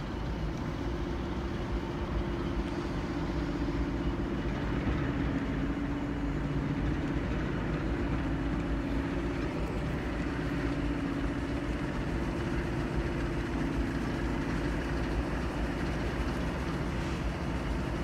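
Diesel locomotive approaching slowly, its engine a steady low drone.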